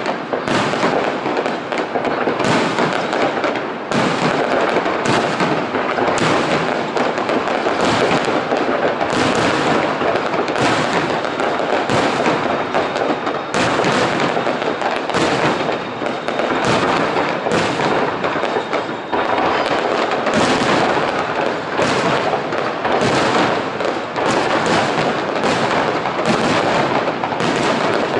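Aerial fireworks going off in a dense, continuous barrage: many shell bursts and crackles overlapping one another with no pause, at an even, loud level.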